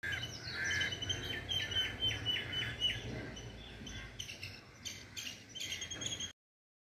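Birds calling: a repeated call, each a held high note that drops sharply at its end, about two a second, followed by a few sharp clicks and one more call. The sound stops abruptly a little over six seconds in.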